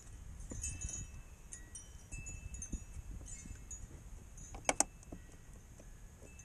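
Light metallic clinks and jangles from hand work on a hose clamp and tools, with short ringing tones. Two sharp clicks come close together a little past the middle.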